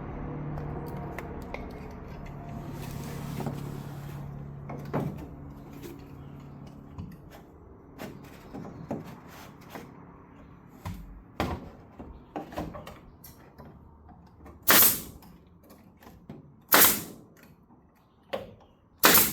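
Pneumatic nail gun firing staples into a plywood patch: three sharp shots about two seconds apart near the end, after a stretch of knocks and handling clicks. A low steady hum fades out over the first several seconds.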